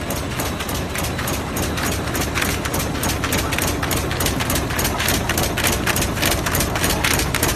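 Artificial grass tufting machine running, making a fast, regular mechanical clatter over a steady drone.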